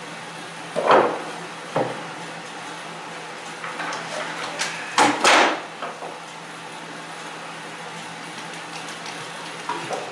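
Knocks and clatter of plywood cabinet parts being handled: a loud knock about a second in, a lighter one shortly after, and a longer clatter around the middle, over a steady background hum.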